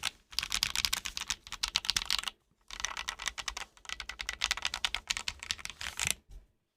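Fast typing on a top-mount mechanical keyboard with HMX Swift linear switches on an aluminum plate and PBT keycaps: a rapid run of keystroke clicks, a short pause about two and a half seconds in, then another run that stops just before the end.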